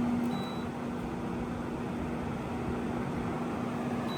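2012 Frigidaire 18,500 BTU window air conditioner running on fan only: a steady rush of air from the blower with a steady low hum under it. The owner says the fan motor's bearings are starting to go out.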